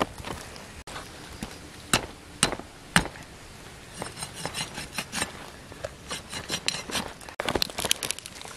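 Large knife chopping at a raw chicken's feet on a banana leaf: three sharp chops about half a second apart, then quicker runs of small clicking cuts.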